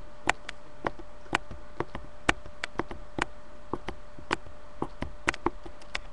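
Computer mouse clicking irregularly, a few sharp clicks a second, as strokes are drawn one by one, over a faint steady hum.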